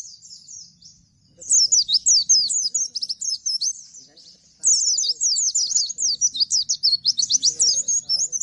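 Caged Bustomi-type white-eye (pleci) singing its fast rapid-fire 'nembak' song: long strings of quick, high, descending twitters. The song comes in two bursts, one starting about a second and a half in and a longer one from about four and a half seconds in.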